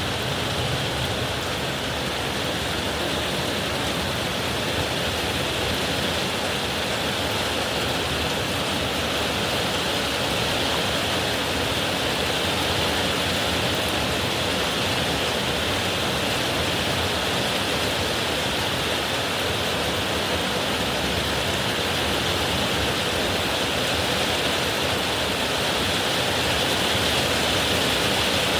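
Heavy rain pouring down in a steady downpour, a dense, even hiss with no thunder.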